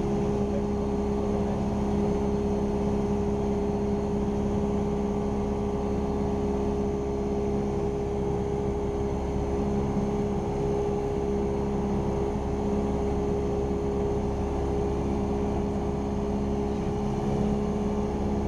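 Cessna 172R Skyhawk's four-cylinder Lycoming engine and propeller droning steadily in flight, heard from inside the cockpit, with an even hum and no change in pitch.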